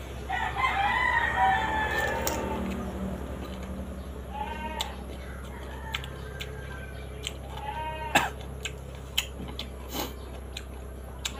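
A farm animal bleats: one long wavering call at the start, then shorter calls three more times. Crisp clicks of bites and chewing on raw green mango run through the second half.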